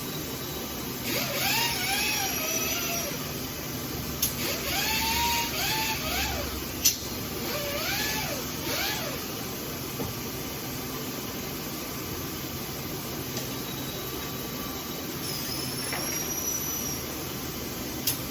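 High-pitched die grinder whine deburring a freshly milled steel edge. It comes in three bursts in the first half, and its pitch dips and recovers each time the bit is pressed against the metal. A few sharp clicks sound over a steady background hum.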